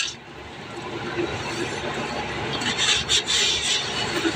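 Rustling and rubbing as groceries are handled, with a few light knocks about three seconds in.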